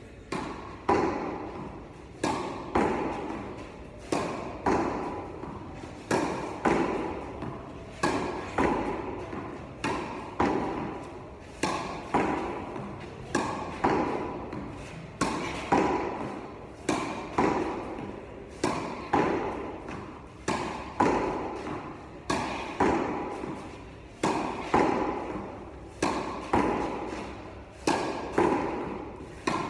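Tennis wall practice: a tennis ball struck by a racket and rebounding off a practice wall, a sharp hit about once a second in a steady rally, each hit echoing in a large metal-roofed indoor court hall.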